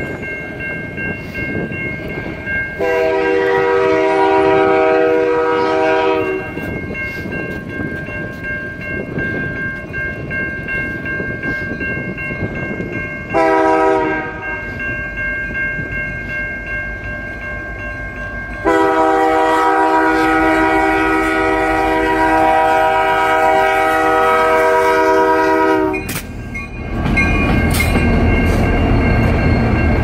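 Air horn of an EMD SD75I diesel locomotive sounding for a level crossing: a long blast, a short one, then a long blast of about seven seconds. A steady ringing of crossing bells runs underneath. Near the end the locomotive's engine and wheels rumble loudly past close by.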